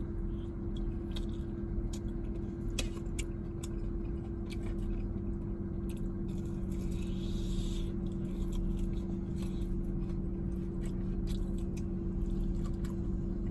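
Close-up chewing and crunching of crispy fried chicken wings, scattered small crunches, over the steady low hum of a car idling with its air conditioning running low.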